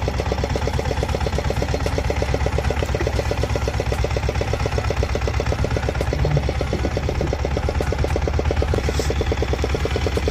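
Boat engine running steadily at low speed with an even, rapid pulse.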